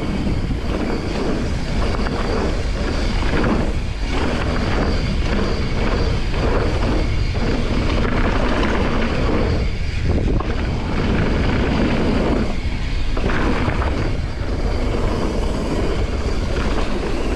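Wind rushing over the camera microphone as a mountain bike rolls fast over a gravel and dirt trail, knobby tyres crunching on the loose surface. The noise is steady and loud, easing for a moment a few times.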